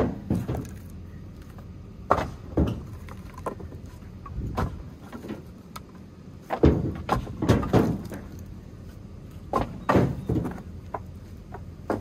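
Split firewood being handled and stacked: irregular wooden clunks and knocks as pieces hit the pile and each other, with a quick run of knocks about seven seconds in.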